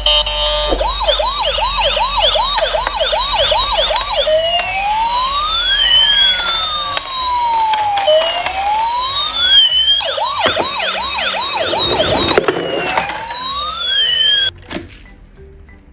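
Electronic toy police car and ambulance sirens. A fast yelp turns into a slow rising-and-falling wail, goes back to the yelp, then the wail again, and cuts off suddenly near the end.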